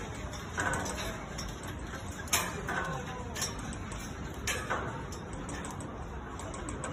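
Scattered sharp clicks and knocks over a steady low rumble, the loudest knock about two and a half seconds in and others near three and a half and four and a half seconds.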